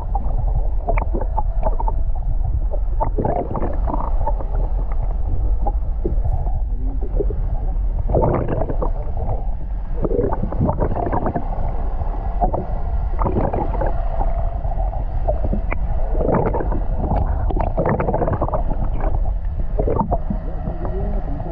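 Water sloshing and slapping against the hull of a small fishing panga, with wind rumbling on the microphone; the splashes come irregularly over a constant low rumble.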